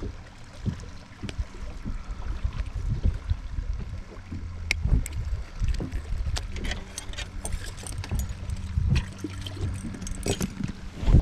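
Water sloshing and gurgling against a fishing boat, with scattered irregular knocks and clicks over a faint low steady hum.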